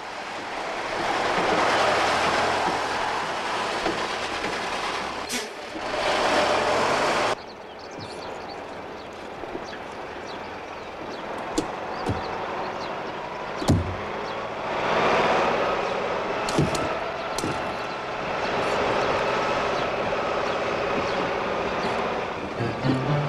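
Cartoon sound effects of motor vehicles: engine and driving noise swells and cuts off suddenly about a third of the way in. A few sharp knocks follow, then the engine noise comes back and runs fairly steadily.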